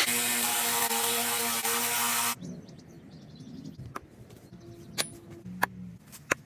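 A power tool running with a steady hum and hiss, cutting off suddenly about two seconds in, followed by a few sharp clicks of metal or tools being handled.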